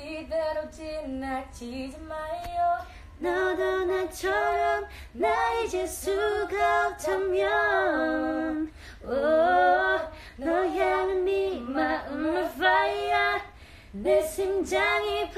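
A young woman singing a pop melody unaccompanied, in phrases of held notes with short breaks between them.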